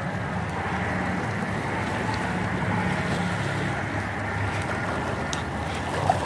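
Steady wind noise on the microphone with small waves lapping against shoreline rocks, under a faint low hum.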